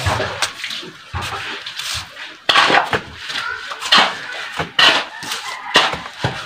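A trowel scraping and scooping wet mortar on a mortar board and spreading it on, in a series of short scrapes and wet slaps about one every half second to a second.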